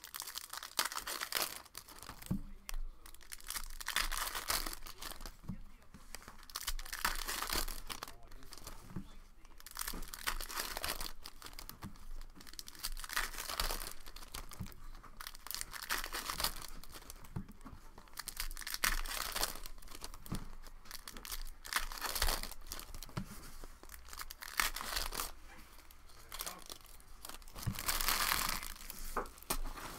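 Foil trading-card packs being torn open and their wrappers crinkled by hand, in repeated bursts of rustling about every three seconds.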